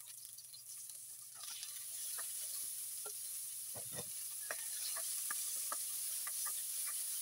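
Sliced onions frying in oil in a nonstick wok: a steady sizzle that grows louder a little over a second in, with scattered small clicks and pops as the spatula stirs. About four seconds in there is a heavier soft thump as strips of red bell pepper go into the pan.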